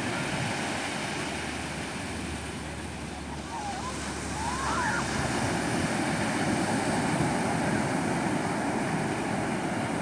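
Pacific Ocean surf breaking and washing up a sandy, rocky beach: a steady rush of waves that swells a little louder about halfway through.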